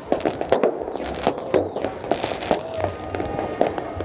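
Fireworks going off in a rapid, irregular run of sharp bangs and crackles.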